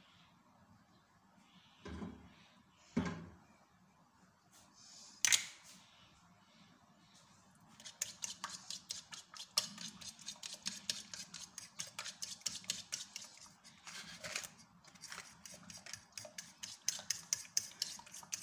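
A metal fork beating an egg into flour-and-water batter in a ceramic plate, clicking quickly and steadily against the plate from about eight seconds in. A few separate knocks come before it.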